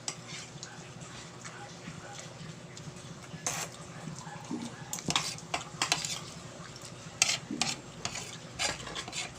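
Cutlery clinking and scraping against a plate or bowl of odong noodles with sardines. Sharp clicks come irregularly, more often from about three and a half seconds in.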